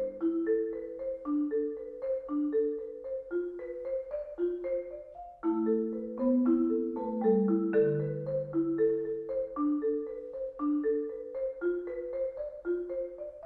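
Marimba played with mallets: a quick, even stream of single notes moving up and down, with lower notes ringing on beneath them.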